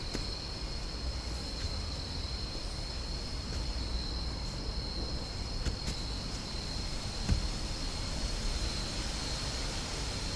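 Steady night ambience of insects chirring at one constant high pitch over a low rumble, with a few faint ticks and one soft thud about seven seconds in.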